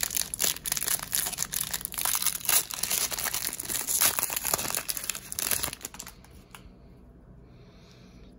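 Foil wrapper of an Upper Deck hockey card pack crinkling and tearing as it is ripped open by hand. The crackling stops about six seconds in, leaving only a faint rustle.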